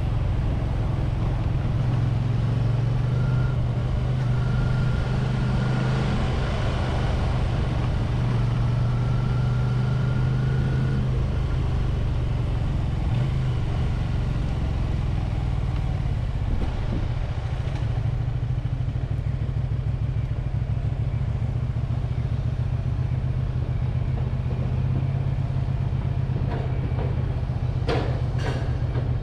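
Honda VT250F Integra's liquid-cooled 90-degree V-twin engine running steadily while the motorcycle is ridden, with a few sharp clicks near the end.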